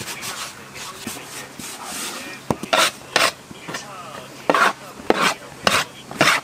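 Dough being worked by hand on a wooden board: short rubbing and scraping strokes. They are soft at first, then sharper and evenly repeated, about one every half second, from about two and a half seconds in.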